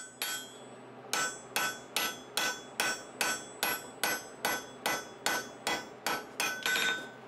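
Hand hammer striking a red-hot bar on the anvil face in a steady rhythm, about two to three blows a second, each with a short metallic ring. The smith is forging the bar's end down into a point.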